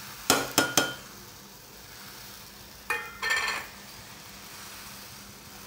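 A steel bowl tapped three times in quick succession against the rim of a pressure cooker to knock out the last chopped tomatoes, each tap ringing metallically. About three seconds in come more ringing metal clinks. A faint sizzle of the tempering oil lies underneath.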